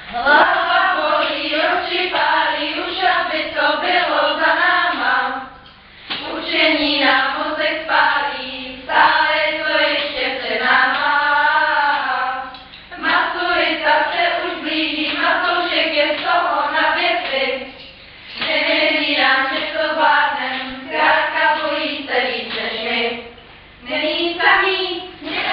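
A group of students, mostly female voices, singing a song together in phrases of about five seconds with short breaks between them.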